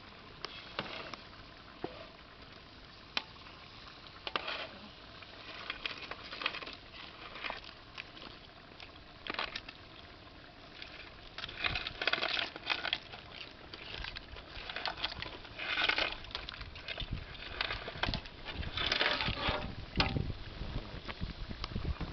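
Handfuls of raw crab pieces dropped into a metal pot of boiling crab curry gravy, making repeated irregular splashes and clattering of shells. The sounds are sparse at first and come thicker and louder in the second half.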